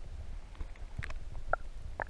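Handling noise on a small action camera's microphone: a steady low rumble with a few light taps and clicks about a second in and again halfway through, as a wet snook is held against the camera.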